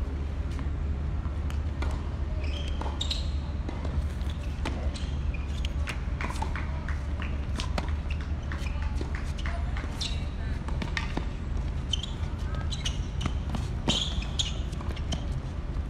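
Tennis rally on a hard court: rackets striking the ball and the ball bouncing, short sharp knocks at irregular intervals, over a steady low rumble.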